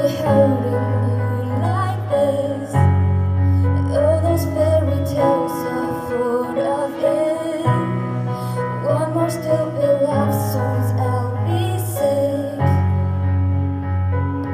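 A female voice singing a slow melody over sustained piano or keyboard chords, the chords changing about every five seconds.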